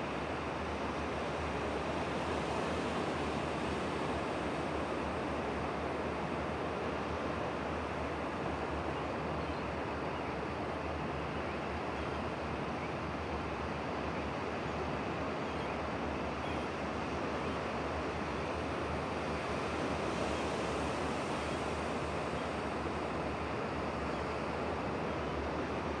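Distant surf breaking on the shore: a steady wash of waves, swelling slightly a couple of times.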